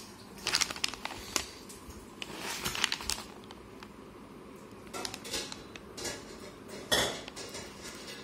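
Paper mailer envelope rustling and crinkling as it is handled, in several short bursts of crackle, the loudest about seven seconds in.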